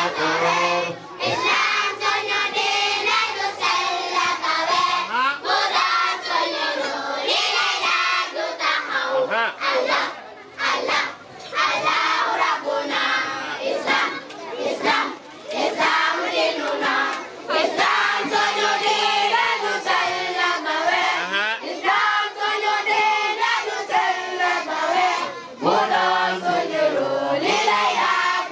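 A group of children chanting and singing together in unison, loud and continuous, with short pauses between lines.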